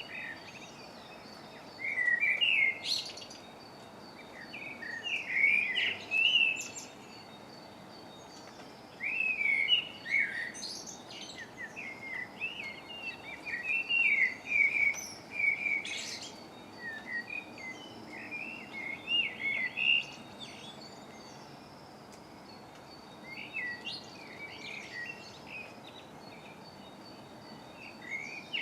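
Songbirds singing in a dawn chorus: bursts of quick chirping song phrases a few seconds long, with short pauses between them, over a faint steady background rumble.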